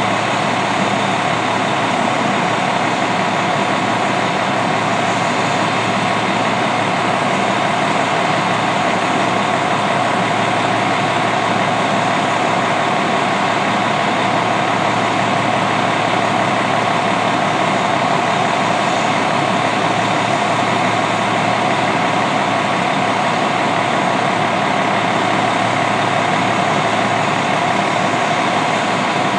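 Detroit Diesel Series 60 EGR diesel engine of an MCI D4500 coach idling steadily while the bus stands at a stop, a constant engine noise with a faint steady whine in it.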